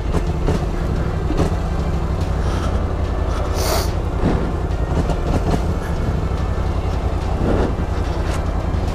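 Polaris Scrambler 1000 XP quad's twin-cylinder engine running steadily at low revs as the quad creeps down a steep slope, with a brief hiss about four seconds in.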